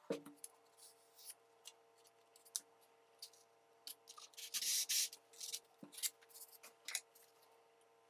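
Hand-work sounds on a foam model: scattered sharp clicks and short scrapes, with a longer rasping, tearing noise about halfway through.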